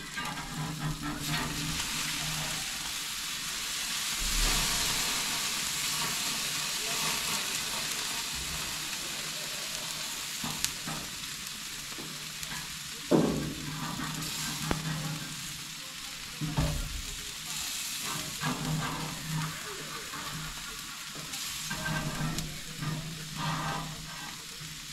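Burger, onions and summer squash sizzling on a gas grill's grates, a steady hiss, with scattered scrapes and clacks of a metal spatula and tongs turning the food; the sharpest scrape comes about halfway through.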